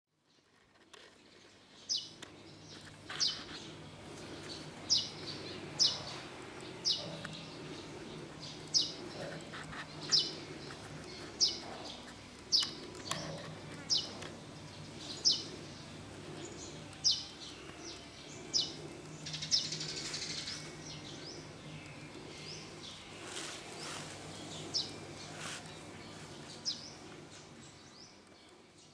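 A bird calling over and over, a short high chirp that slides downward, repeated roughly once a second. A faint steady low hum runs underneath.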